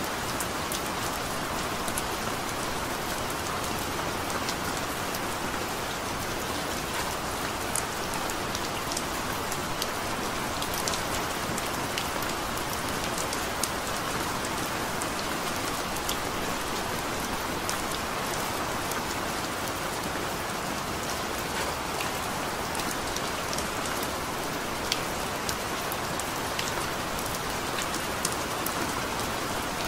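Steady rain falling: an even hiss with many separate sharp drop ticks scattered through it.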